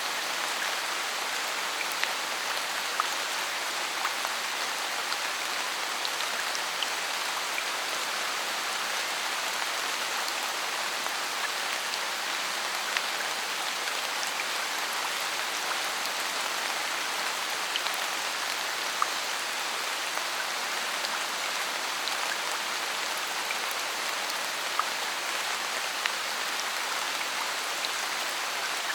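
Steady rain falling in a forest, an even hiss with scattered louder drops ticking on nearby surfaces.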